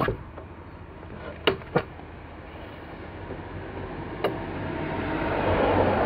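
Sharp metal clicks and clacks of a gate's ring-handled latch being worked and the wooden gate swung open, over steady road traffic that grows louder toward the end.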